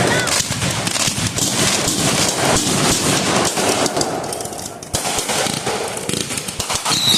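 Fireworks crackling: a rapid, dense run of sharp pops like a string of firecrackers going off, with an abrupt break a little before five seconds in.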